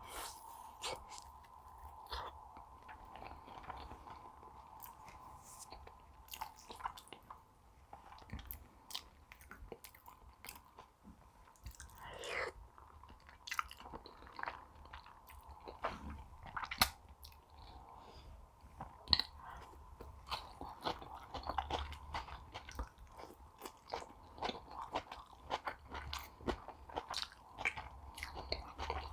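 Close-miked chewing of a soft potato zraza stuffed with minced meat, with many short wet mouth clicks and smacks.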